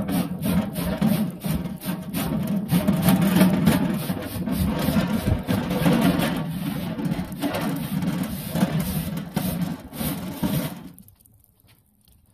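A brush scrubbing back and forth across a steel expanded-metal grill grate in rapid, continuous strokes, scraping off ash and debris. It stops abruptly near the end.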